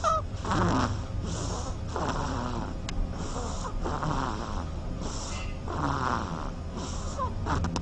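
Duckling snoring in its sleep: soft, raspy breaths in a steady rhythm, a lower breath alternating with a hissier one about every second. A short rising peep comes right at the start.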